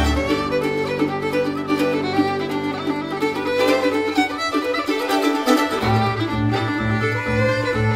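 Instrumental background music with held string-like notes; a low bass part drops away and comes back as a regular pulsing beat about six seconds in.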